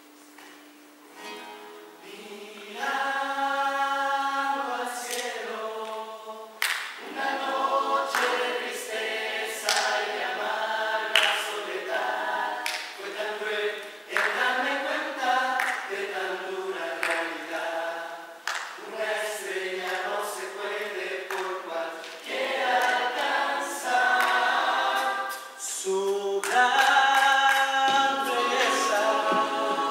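A rondalla performing: a mixed group of voices singing together in harmony with acoustic guitars, coming in about a second in after a quiet start.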